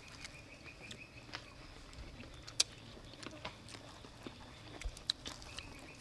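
Quiet eating sounds: scattered crunches and clicks of chewing crispy fried octopus and handling lettuce leaves, the sharpest around two and a half seconds in and near five seconds.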